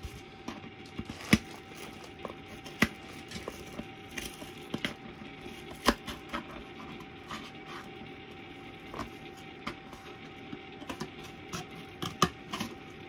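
Scissors cutting a small hole out of a cardboard shape: irregular sharp snips and crunches, a few of them much louder than the rest.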